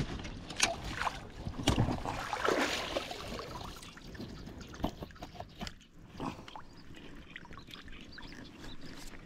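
Handling noise at the waterline: a few sharp knocks and rustles as dead branches are gripped and moved, busiest in the first three seconds, then quieter with occasional clicks and light water movement.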